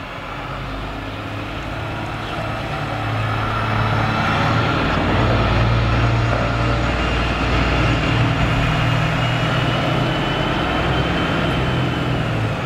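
An engine running close by, getting louder over the first four seconds and then holding steady at a low, even pitch.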